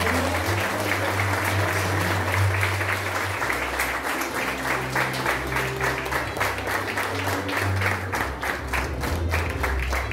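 Audience applauding, with music and its bass line playing underneath.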